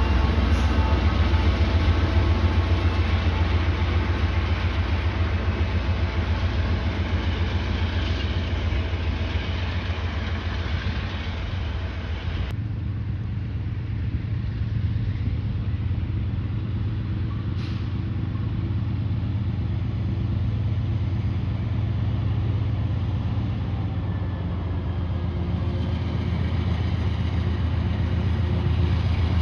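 Canadian Pacific diesel locomotives on a coal train. First a close pass: a heavy, low engine rumble with several steady ringing tones above it. After a sudden cut about twelve seconds in, there is a steadier, more muffled low rumble as another locomotive approaches.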